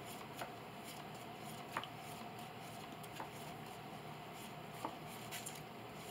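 Quiet room tone with a few soft, scattered clicks of trading cards being drawn, handled and set down on a playmat.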